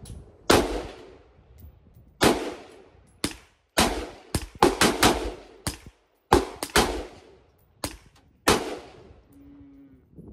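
AR-15-style rifle firing 5.56 rounds in semi-automatic: about fifteen sharp shots at an uneven pace, several fired in quick succession, each followed by a decaying echo.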